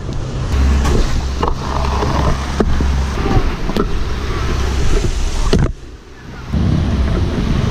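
Pro scooter wheels rolling over stone plaza pavers, a steady rumble with sharp clacks as they cross the joints, going briefly quieter about six seconds in before the rolling picks up again.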